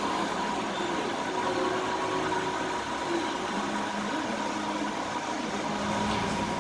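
A glass-bottom boat's motor running, heard as a steady even rumble and hiss with a faint steady whine over it.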